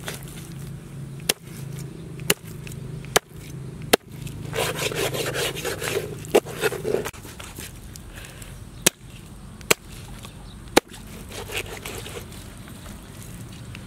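A large knife chopping through giant trevally into a wooden cutting board, cutting the fish into steaks: about eight sharp knocks at uneven intervals of roughly a second. There is a stretch of scraping and rustling about five seconds in.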